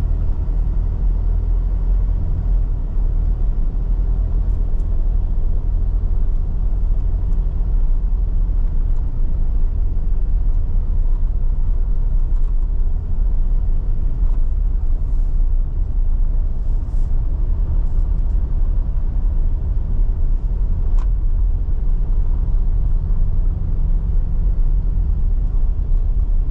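Car running with a steady low rumble of engine and road noise.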